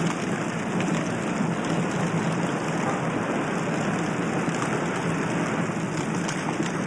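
Steady rushing noise with a few faint ticks scattered through it.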